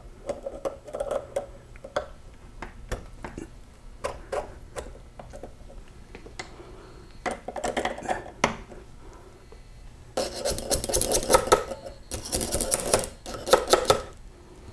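Steel snap ring being worked down the splined mainshaft of a Super T10 four-speed transmission: scattered light metallic clicks, then a few seconds of rapid scraping and clinking from about ten seconds in, as the ring is walked toward its groove.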